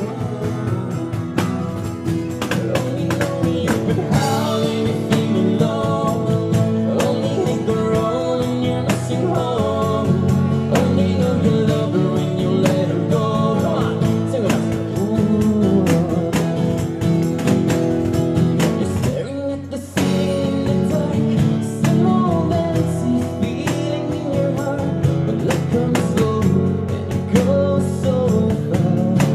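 A song with singing over acoustic guitar, breaking off briefly about twenty seconds in.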